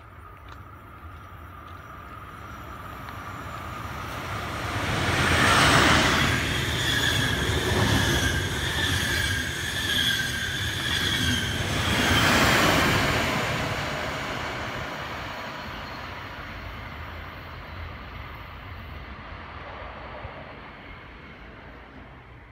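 A train hauled by a red SBB Re 4/4 II electric locomotive passes close by. It grows louder over several seconds and is loudest for about eight seconds, with a steady high-pitched squeal over the rumble of the wheels, then fades away.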